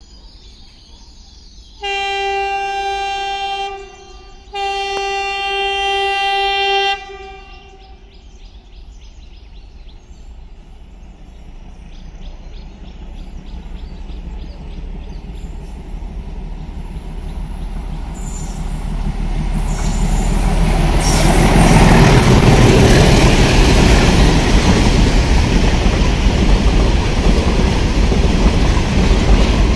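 A WDS6 diesel locomotive sounds two long horn blasts. Then its freight train of covered goods wagons approaches and passes close by, the rumble of the locomotive and the wagon wheels on the rails growing steadily louder and staying loud.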